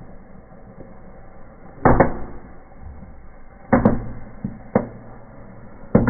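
Small firecrackers going off in a burning fireplace: a quick double bang about two seconds in, then single bangs at uneven gaps, one of them faint. Between the bangs there is a low, steady rush of fire.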